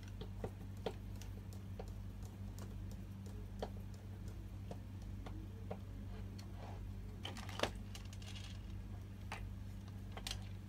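Hand screwdriver driving a screw into a metal desk bracket: irregular small clicks and ticks, with one louder knock about seven and a half seconds in, over a steady low hum.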